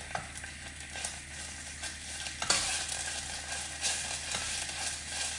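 Green curry paste frying in cooking oil in a pan, a steady sizzle, while it is stirred with scraping and knocking against the pan; one sharper knock about two and a half seconds in. This is the first stage of a Thai green curry: sautéing the paste in oil until fragrant.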